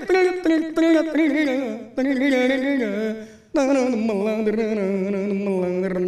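A man singing unaccompanied in Turkish folk style: several short ornamented phrases with wavering notes, then one long held note that sinks slightly in pitch over the last couple of seconds.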